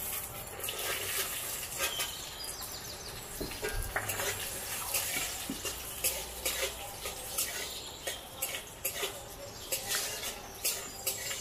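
Washed cashews frying and sizzling in a metal kadai, with a metal spatula scraping and clicking against the pan as they are stirred.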